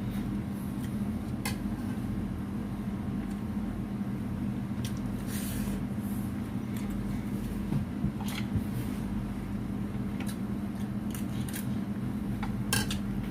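Eating sounds: scattered clicks and clinks of cutlery on a plate and chewing, a few louder clinks past the middle and near the end, over a steady low hum.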